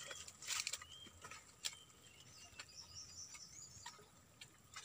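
Faint small splashes and drips as hands work in shallow, muddy water, with a few scattered sharp clicks. Birds chirp faintly in the background.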